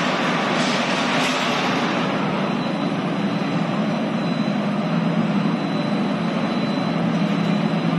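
Rotary moulder dog-biscuit machine running: a steady mechanical hum and rush from its moulding roller, drive motors and conveyor belts, with a thin, steady high whine over it.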